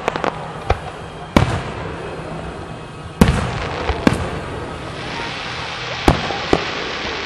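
Aerial firework shells bursting overhead: about seven sharp bangs, each trailing off in an echo, loudest about three and six seconds in, with a rising hiss over the last couple of seconds.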